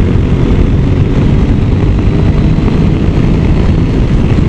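Motorcycle riding at road speed, heard from a camera mounted on the bike: steady wind rush and engine and road noise, heaviest in the low range.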